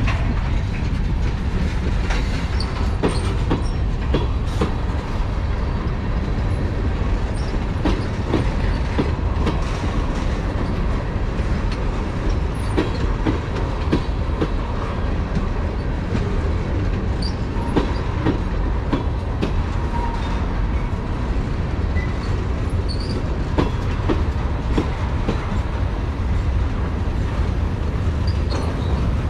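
Norfolk Southern freight train's cars rolling past: a steady low rumble with scattered clicks and clanks of wheels over the rail joints, and a few brief high wheel squeals.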